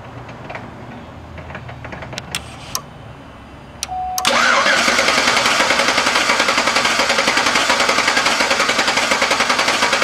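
A few light clicks, then about four seconds in the 5.3-litre V8 of a 2009 Chevy Tahoe is cranked over on its starter with a fast, even pulsing that holds steady. The cranking is a check with the valve cover off for a flat intake cam lobe on cylinder 7, the suspected cause of its misfire.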